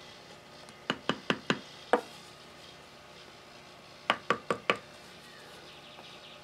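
Light wooden knocks of a rod rapping a wooden pattern bedded in molding sand, loosening it from the sand so it can be drawn. Two quick runs of taps: five about a second in, four more a little past the middle.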